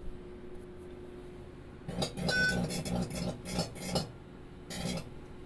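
A microwave oven running with a low hum, broken from about two seconds in by a run of loud crackling, buzzing bursts and another near the end. This is typical of arcing inside a damaged, burnt cavity.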